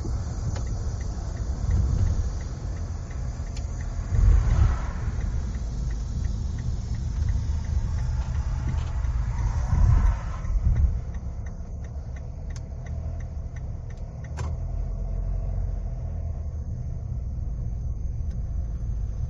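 Car driving on the road: a steady low rumble of engine and tyres, with two louder swells about four and ten seconds in, easing to a quieter, steadier low hum in the second half.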